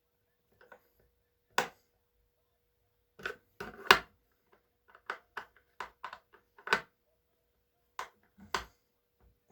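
Irregular sharp clicks and knocks of a screwdriver against the screws and plastic top cover of a chainsaw as the cover screws are given a final tightening turn. There are about a dozen, the loudest near four seconds in.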